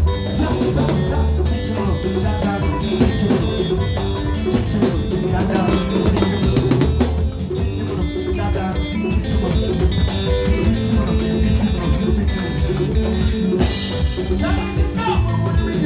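Live band playing: an electric bass guitar carries a strong, moving bass line under a drum kit with cymbals, keeping a steady, dense groove.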